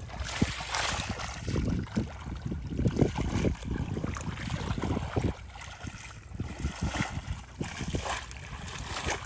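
Irregular splashing and sloshing in shallow, muddy field water, in short uneven bursts.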